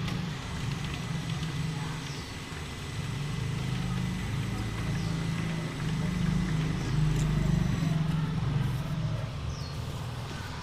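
A low, uneven motor rumble that grows louder about six seconds in and eases off near the end.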